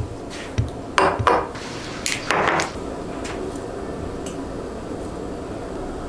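Glass mug and a glass tea jar with a metal lid handled on a kitchen countertop: a few sharp clinks and knocks in the first second and a half, a short scraping rattle about two and a half seconds in, then a couple of faint ticks as metal tongs drop dried rose petals into the mug.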